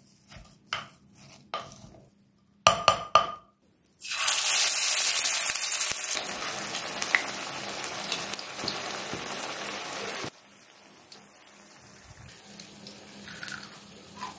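A spoon stirring a thick raw mix of chopped banana flower, onion and gram flour in a bowl, in short scraping strokes, followed by three sharp clinks. From about four seconds in, banana flower vadai patties deep-frying in hot oil: a loud, steady sizzle that drops to a quieter sizzle a little after ten seconds.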